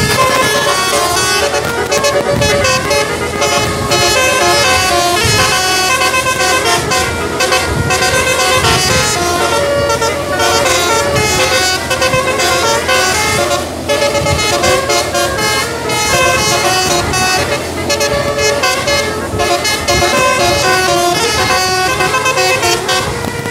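Bus 'basuri' telolet musical air horn playing a continuous tune, several pitched tones sounding together and stepping quickly from note to note.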